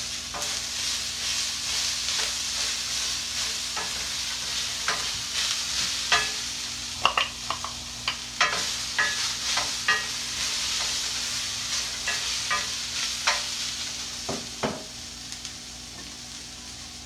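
Chopped okra and corn sizzling in oil in a stainless-steel skillet. A wooden spoon scrapes and knocks against the bowl and pan as the vegetables are tipped in and stirred, giving scattered sharp clicks over a steady sizzle. The sizzle eases a little near the end.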